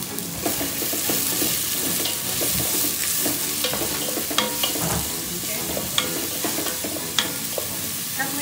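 Chopped onions sizzling in a large aluminium pot while a wooden spoon stirs and scrapes them, with a few sharp knocks of the spoon against the pot about halfway through and later.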